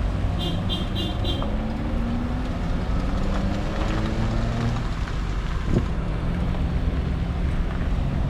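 Vehicle engines running steadily, a low hum that drifts slowly in pitch. About half a second in come four quick high beeps.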